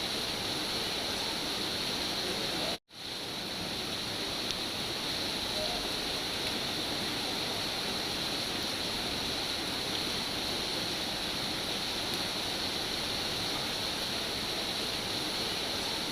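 Steady heavy rain, an even hiss, cutting out for an instant about three seconds in and fading back up, the seam of a looped recording.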